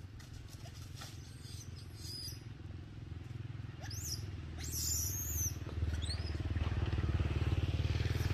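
A motorcycle engine running steadily as a low pulsing rumble that grows louder over the second half. A few short high-pitched calls come through around the middle.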